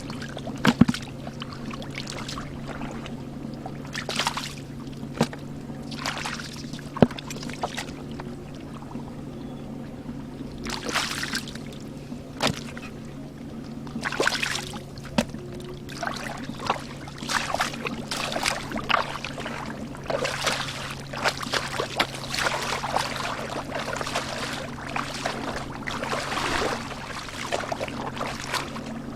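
Water splashing and sloshing in irregular bursts, busier in the second half, with a few sharp knocks, over a steady low hum.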